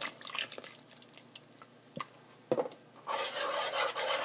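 Liquid dripping with a few light clicks, then from about three seconds in a spoon stirring the cream into a pot of tomato and butter sauce, scraping steadily against the pot.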